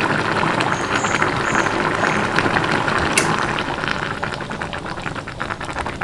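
Pot of cassava-leaf curry in coconut milk bubbling on the boil, a dense crackle of small pops that eases off over the last couple of seconds.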